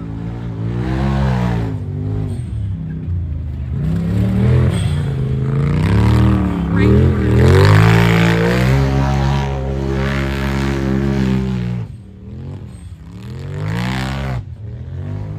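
Side-by-side engines revving hard on a dirt course, their pitch rising and falling again and again. It is held steady for a few seconds past the middle, dips briefly about three-quarters of the way through, then climbs again.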